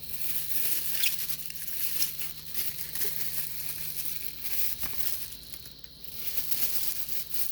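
Packaging crinkling and rustling as a knife is unwrapped from its box, with a short pause about three-quarters of the way through.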